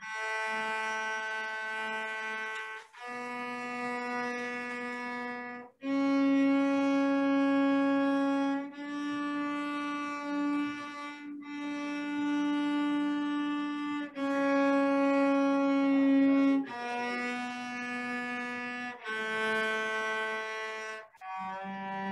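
Cello playing a D major scale in long, slow bow strokes. Each note is held for about two to three seconds, with a short break at each bow change. The notes climb to the top of the scale and then come back down near the end.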